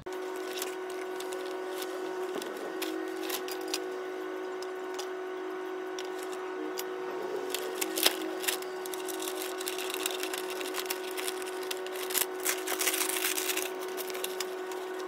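Wallpaper being unrolled and smoothed by hand, with crinkling, rustling and light taps that come thickest about eight seconds in and again near the end, over a steady machine hum.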